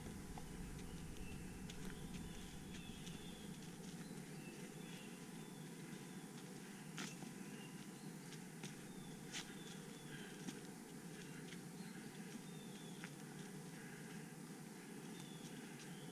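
Quiet forest ambience: faint birdsong of short high notes repeating over a steady low hiss, with a few sharp clicks about seven, nine and ten seconds in.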